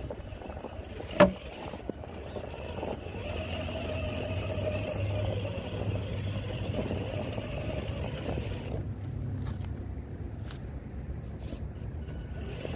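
A 1/8-scale RC short-course truck heard from its onboard camera. A sharp knock comes about a second in, the loudest sound in the stretch. Then the motor and drivetrain run with a steady whine over a rumble for about six seconds and cut off suddenly, followed by a few light clicks.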